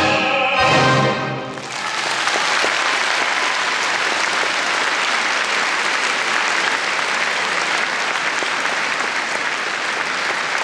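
A baritone, choir and symphony orchestra hold the last chord of a song, which cuts off about a second and a half in. A concert-hall audience then applauds steadily.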